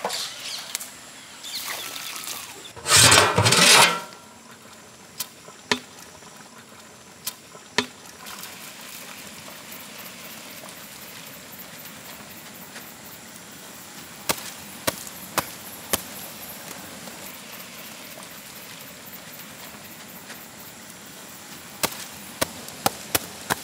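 Cooking at a large biryani pot: a brief loud rush of noise about three seconds in, then a steady low hiss broken by scattered sharp knocks in small groups.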